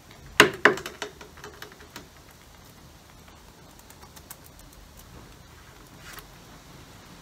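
Sharp clicks and knocks of a hose clip being worked off the bottom pipe of a coolant expansion bottle: two loud clicks about half a second in, a quick run of smaller ones, then only faint handling noise.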